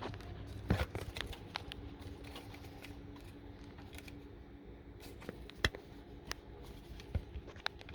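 Scattered sharp plastic clicks and small rattles as a wiring harness connector is worked onto a Toyota Tundra's fuel pump driver module, the connector fighting being seated.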